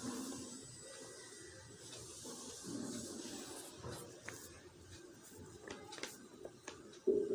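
Graphite pencil scratching and rubbing on drawing paper in short strokes over a faint steady hiss, with a brief louder low sound near the end.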